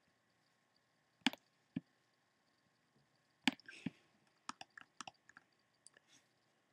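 Faint clicks of a computer mouse as on-screen dialogs are worked: two pairs about half a second apart, then a quicker run of clicks.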